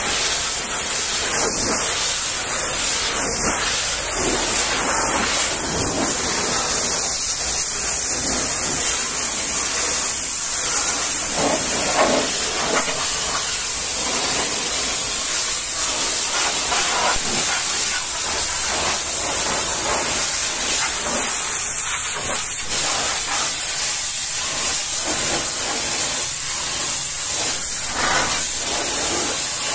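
High-pressure washer lance spraying a steady hissing jet of water against a semi-trailer's rear doors, then over its tyres and underframe. The spray's sound shifts as the jet moves across the surfaces.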